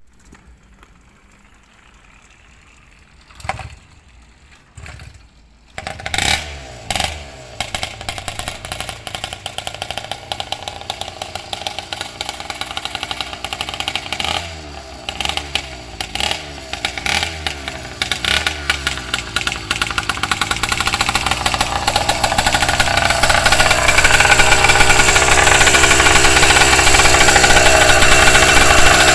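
Newly built engine being started for break-in: two short bursts, then it catches about six seconds in and runs unevenly with rapid pulsing. It grows louder and settles into a steady, faster run near the end. It has an exhaust leak.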